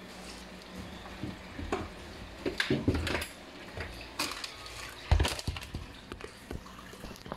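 Kitchen items clattering and knocking as they are picked up and moved about, with a sharp thump about five seconds in.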